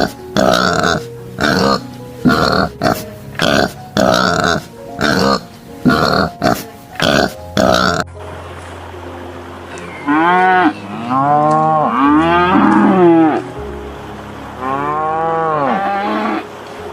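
Pigs grunting in quick, irregular short grunts. After a cut about eight seconds in, cattle moo three times, each call rising and falling in pitch. Faint background music runs underneath.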